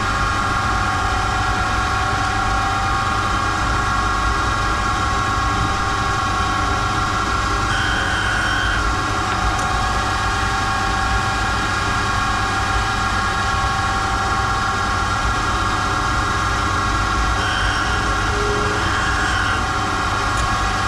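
Valve refacing machine running steadily, its motor and grinding wheel giving a steady hum with several held tones while the valve tips are ground. Brief higher notes come about eight seconds in and twice near the end.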